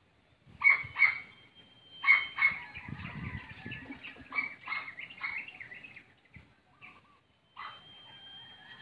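Puggle giving short, high-pitched barks and yelps: two pairs of sharp barks in the first few seconds, then a run of quicker yelps, and another short bout near the end.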